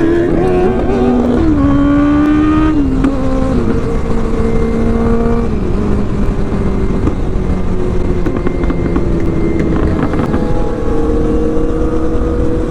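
Motorcycle engine pulling up through the gears, its pitch dropping at each of three upshifts in the first six seconds, then cruising steadily and slowly building revs near the end, with heavy wind rumble on the microphone.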